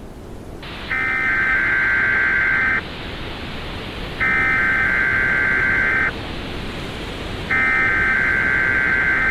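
Emergency Alert System SAME header: three bursts of digital data tones, each nearly two seconds long, over a steady hiss.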